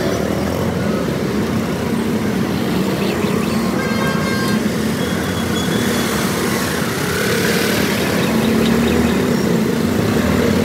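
Busy street traffic: auto-rickshaw and motorcycle engines running close by, with a horn honking about four seconds in.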